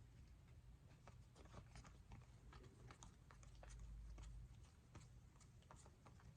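Near silence with faint, scattered soft clicks of trading cards being handled and slid past one another as a pack is sorted through.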